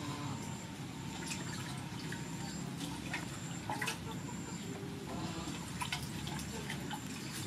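Water sloshing and dripping as hands stir and swish noodles soaking in a large stainless steel basin of water, with a few light knocks.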